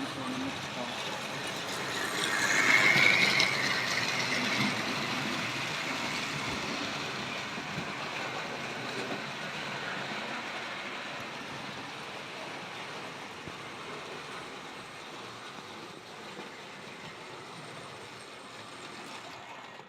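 Model trains running around a layout, their wheels clattering and rumbling along the track. Loudest a few seconds in, then gradually quieter.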